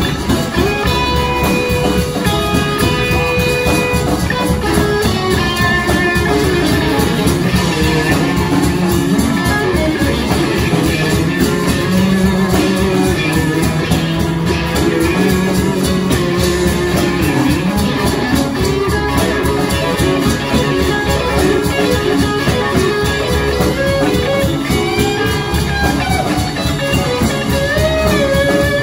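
Live rock band playing: electric guitars, bass and drum kit, loud and steady without a break.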